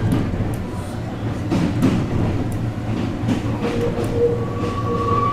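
ET127 series electric train heard from inside the passenger cabin as it rolls along: a steady running rumble with scattered wheel clicks over the rails. A thin steady whine comes in near the end.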